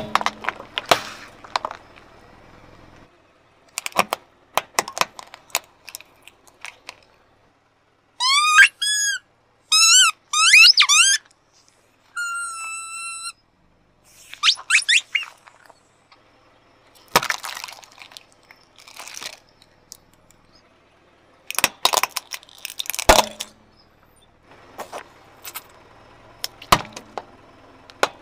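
A car tyre crushing toys on asphalt: hard plastic cracking and crunching in short clusters, with squeaky rubber toys letting out a series of squeals and then one long whistling squeak as they are squashed, about a third of the way in.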